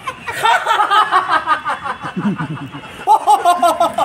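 A man laughing on purpose, a run of short quick laughs that keep changing in pitch, put on as a show of many styles of laughter.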